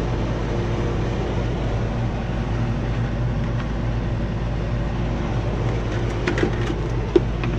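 Air conditioner's indoor air handler running steadily: a low hum under an even rush of air, with a few light clicks near the end.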